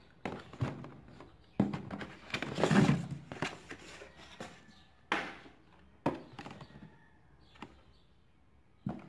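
Cardboard shipping box handled by hand, its flaps pushed open and knocked: a string of separate thunks and scrapes. The longest and loudest is a scraping rustle about two and a half to three seconds in.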